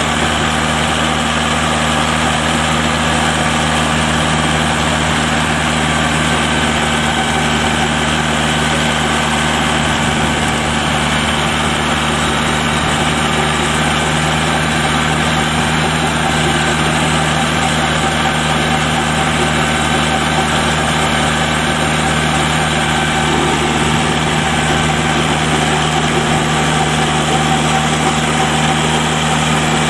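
Shibaura SD3000 tractor's diesel engine running steadily at a constant speed while it pulls a rotary levee-forming attachment through paddy mud.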